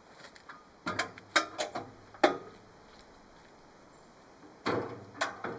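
Metal clanks and clicks of a swing-away rear spare-wheel carrier being swung shut and latched: a quick run of sharp knocks about a second in, and another clunk near the end.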